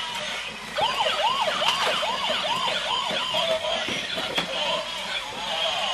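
Toy police car's electronic siren: a string of quick rising-and-falling whoops over a steady high tone, fading somewhat in the second half, with a couple of sharp plastic clicks.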